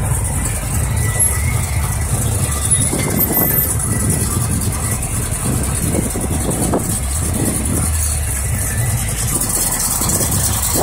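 Car engine running at low speed as a convertible on oversized rims rolls past, a steady low rumble.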